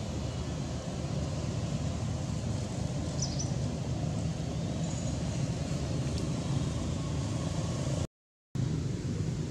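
Steady low outdoor rumble, with a few faint short high chirps about three seconds in; the sound drops out to silence for about half a second near the end.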